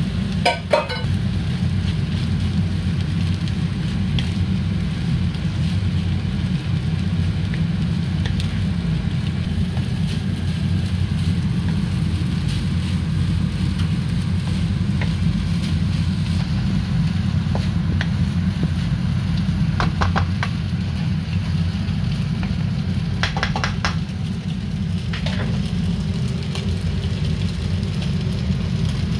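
A steady low rumble runs throughout. Over it come a few light knocks and scrapes of a wooden spoon in a non-stick wok as fried rice is stirred: once just after the start and in a couple of short clusters later on.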